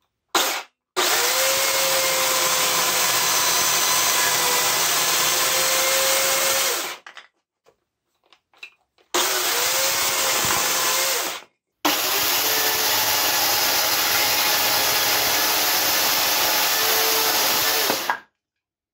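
Makita UC4041A 1,800 W electric chainsaw running and cutting through wood. A brief blip is followed by three runs of several seconds each, with short stops between. The motor's whine sags and recovers as the chain bites into the wood.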